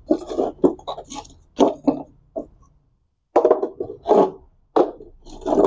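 Lumps of hardwood charcoal knocking and clacking against each other and on brick as they are picked up and set down by hand, a run of irregular knocks.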